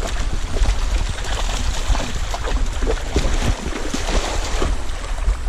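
A dog wading and splashing through a shallow, fast-running stream, its legs churning the water over the rushing flow.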